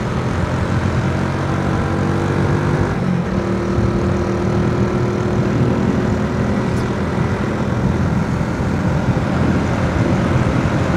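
Honda Astrea Grand's small single-cylinder four-stroke engine running steadily at cruising speed, under a rush of wind and road noise while riding.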